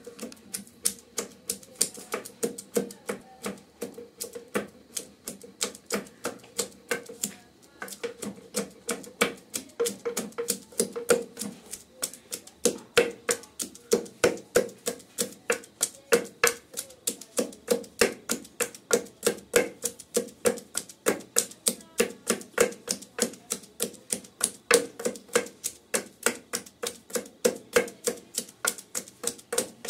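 Pestle pounding garlic cloves in a metal mortar in a quick, even rhythm of about three strikes a second, the mortar ringing with each blow.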